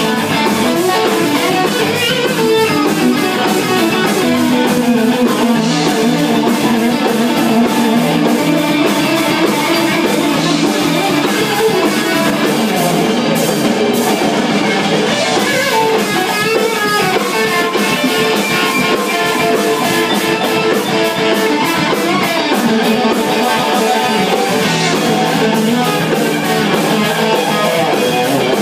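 Instrumental band jam led by guitars playing continuously and loudly, with a rhythm section underneath.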